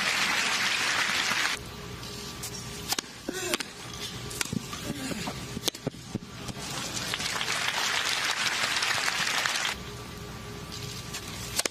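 Tennis crowd applauding, cut off about a second and a half in. A quieter stretch follows with several sharp racket strikes on the ball during a rally. Then applause rises again for about three seconds and stops abruptly.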